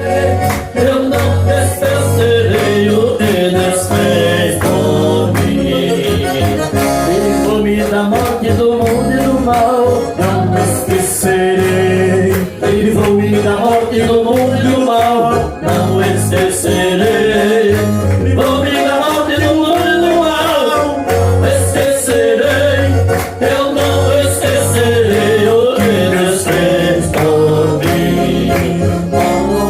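A man singing a gospel praise chorus over electronic keyboard accompaniment with sustained chords and a steady bass line.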